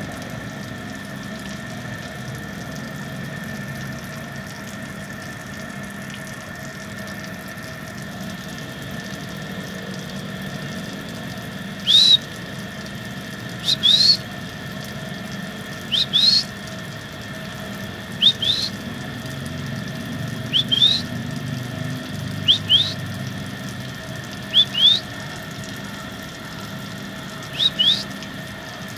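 Short, high, rising whistles, each given as a quick pair, repeating about every two seconds from about twelve seconds in. They sound over a steady hiss carrying a faint constant hum.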